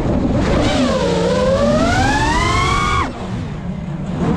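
Brushless motors and propellers of a 5-inch FPV quadcopter whining, the pitch dipping and then climbing steadily with the throttle. About three seconds in the whine drops away sharply as the throttle is cut, leaving a lower hum that begins to rise again near the end.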